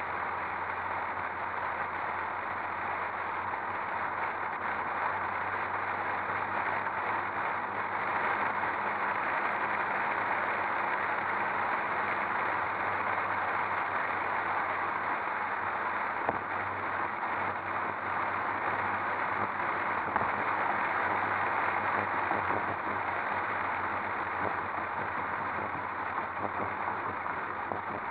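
Steady wind and road noise of a car driving, picked up by a camera mounted outside the body, with a faint low engine hum underneath. Two brief small knocks come past the middle.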